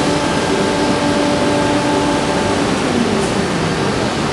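CNC router with automatic tool changer running: a steady mechanical hum with several held tones over a constant noise, the tones shifting in pitch about three seconds in.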